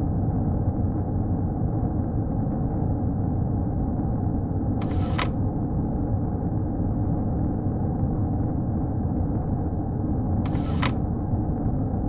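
Steady, deep rumble of storm seas and wind. Two short hissing swishes come about five and ten and a half seconds in.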